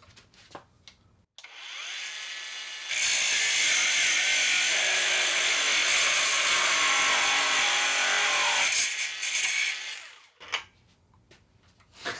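Cheap cordless angle grinder spinning up, then its cutting disc grinding through half-inch steel round bar for about six seconds before it winds down. The underpowered motor strains against the friction of the cut, which nearly stops it from cutting.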